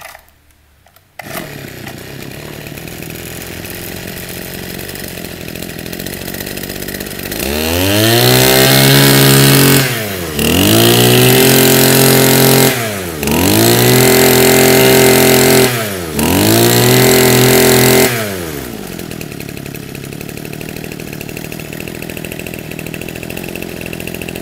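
Mitsubishi TM21 21cc two-stroke brushcutter engine pull-started, catching about a second in and idling. It is then revved up four times for two to three seconds each, dropping back to idle between, and returns to idle before stopping near the end. It runs very smoothly.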